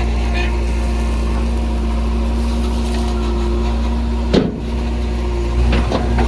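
JCB 3DX backhoe loader's diesel engine running steadily. There is a sharp knock about four seconds in and a couple of lighter clunks near the end.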